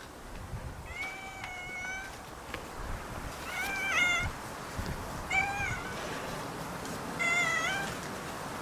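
Calico cat meowing four times, each meow rising and falling in pitch, the first about a second long.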